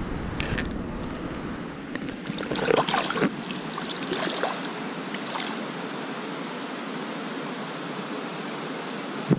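Steady rush of river water, with a few splashes about two and a half to three seconds in as a sea trout moves in a landing net held in the water.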